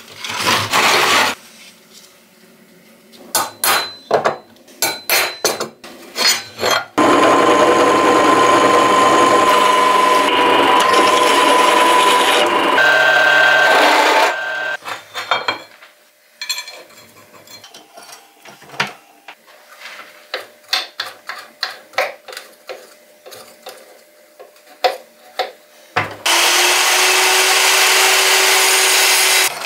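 A power tool running loudly for about seven seconds, and again for a few seconds near the end, with runs of short scraping strokes and scattered knocks of hand work in between.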